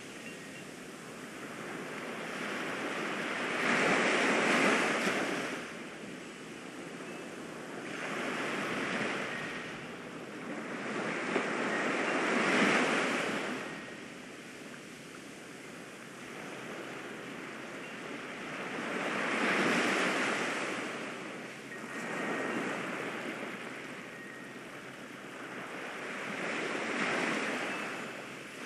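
Ocean surf: waves rolling in and breaking, the wash swelling and fading every few seconds.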